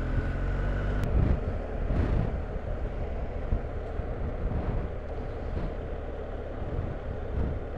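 BMW R1250GS boxer-twin motorcycle running on the move, under a steady rush of wind and road noise. A brief sharp tick sounds about a second in.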